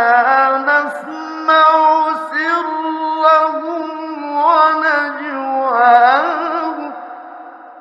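A man's voice chanting Quran recitation in the ornate tajwid style, with long held, wavering melodic phrases. The voice swells once more, then trails off after about seven seconds at the end of a verse.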